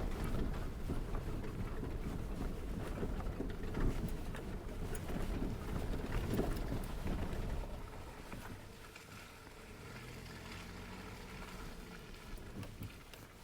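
Suzuki Jimny JB74 with its 1.5-litre four-cylinder engine, crawling slowly up a rocky off-road track. Engine running with tyre and track noise, fading quieter about eight seconds in.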